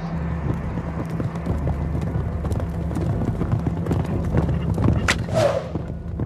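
Horse galloping, hooves beating in quick succession, with a brief rush of noise about five seconds in.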